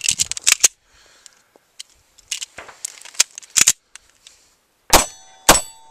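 Beretta PX4 9mm pistol firing two shots about half a second apart near the end, each followed by the ring of a struck steel target. Before that, a string of sharp metallic clicks and clacks as the pistol is handled while a malfunction is cleared.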